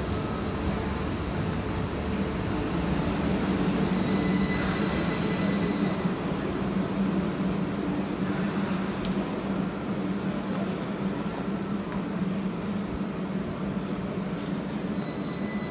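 Heathrow Express Class 332 electric train moving slowly through a station, with steady running noise and a low hum. Thin high squeals from the wheels come and go over it.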